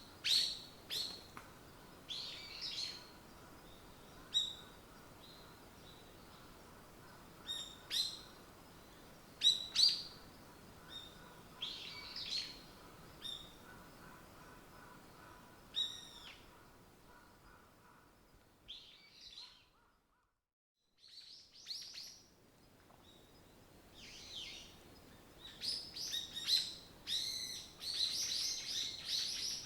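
Forest songbirds chirping and calling in short, repeated notes. The sound cuts out for about a second two-thirds of the way through, then resumes with a busier chorus near the end.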